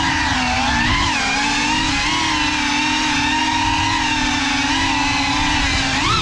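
FPV quadcopter's motors and propellers whining steadily in flight, the pitch wavering with the throttle, with a quick rise and fall in pitch near the end.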